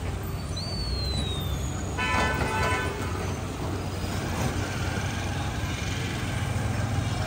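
Steady street traffic rumble, with a vehicle horn honking once for under a second about two seconds in.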